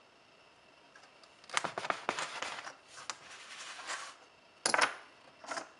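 Fondant circle cutters being handled: a run of clicks and scraping clatter, then a sharp clink with a brief ring about three-quarters in and a smaller click just after.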